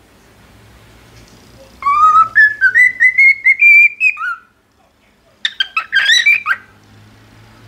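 Cockatiel whistling its song: a phrase of short notes stepping up in pitch, then after a pause a brief burst of quick warbled chirps.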